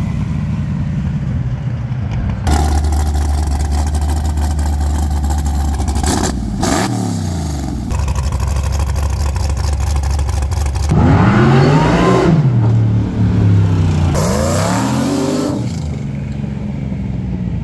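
Whipple-supercharged LS V8 of a six-wheel sand truck idling and being revved. Stretches of high steady revs are followed by several sharp rises and falls in pitch, and the sound changes abruptly between passages. The engine settles back toward idle near the end.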